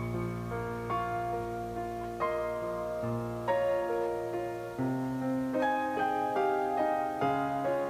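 Gentle background piano music, notes struck one after another over held bass notes.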